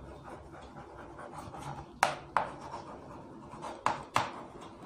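Chalk writing on a chalkboard: faint scratchy strokes, with sharp taps of the chalk against the board, two about two seconds in and two more near the end.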